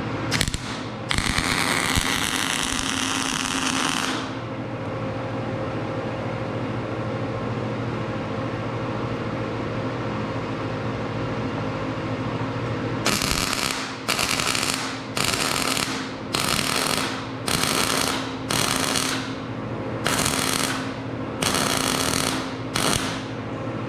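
MIG welder arc crackling as steel parts are tack-welded: one longer weld of about three seconds starting about a second in, then a run of about ten short tacks, each about half a second long, starting about thirteen seconds in. A steady hum continues between the welds.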